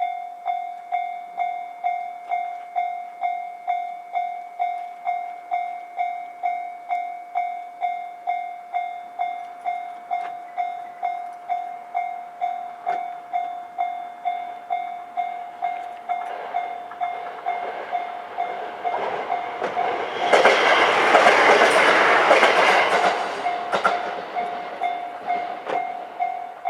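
Japanese level-crossing warning bell ringing its electronic 'kan-kan' tone about twice a second throughout. Meanwhile a KiHa 127 diesel railcar approaches and passes over the crossing, loudest about 20 seconds in, then fades away.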